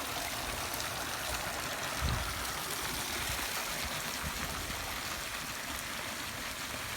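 Fountain water pouring and splashing over a bronze sculpture, a steady rush, with a brief low thump about two seconds in.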